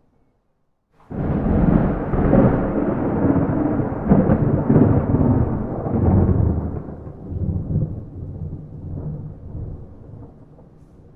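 A thunderclap with no rain. It breaks in suddenly about a second in, rolls loudly for about five seconds, then slowly dies away into a low rumble.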